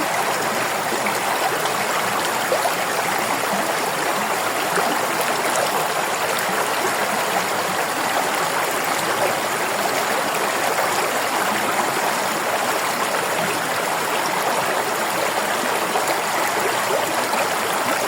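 River water flowing over rocks: a steady rushing and babbling.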